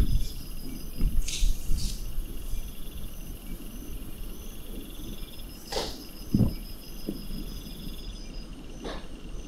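Insects chirping steadily in the background in fast high pulses, with a few short rustles about a second in and again around six seconds.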